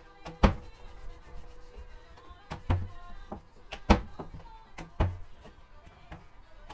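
Wooden rolling pin knocking and rolling on a plastic cutting board as small spinach puri dough rounds are rolled out: four sharp knocks a second or so apart, with faint background music.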